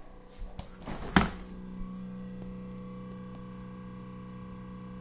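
A few knocks, the loudest about a second in, then a steady pitched hum from a Kenmore refrigerator running, the loud noise of a fault that has not been repaired.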